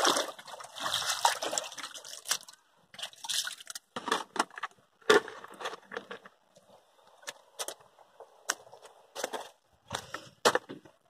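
Water sloshing and splashing as a kitchen sieve is swished in muddy river water, for about the first two seconds. It is followed by scattered short clicks and taps.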